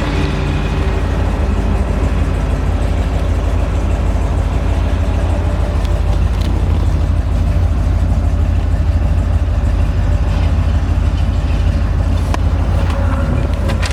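A 1967 Corvette's 427 big-block V8 (390 hp) idling steadily with a deep, even rumble.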